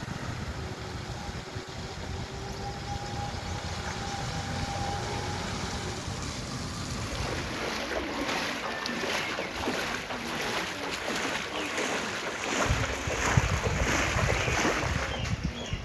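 Water splashing and sloshing as people wade through shallow floodwater, denser from about halfway through, over wind rumbling on the microphone that grows stronger near the end.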